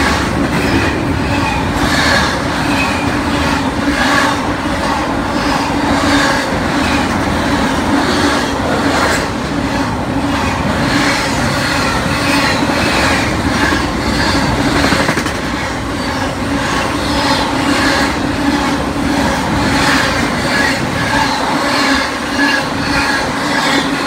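Double-stack intermodal container train rolling past, its steel wheels clicking and clattering over the rails in a steady continuous run of noise.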